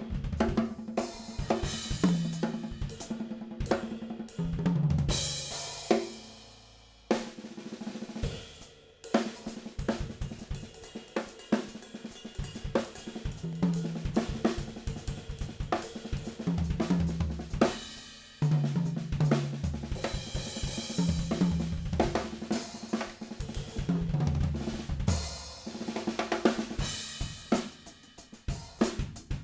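Full drum kit played with Zultan Heritage cymbals: hi-hat, crash, ride and splash over snare and bass drum, with low pitched notes under the drums. A crash rings out about five seconds in and the playing stops briefly, then picks up again.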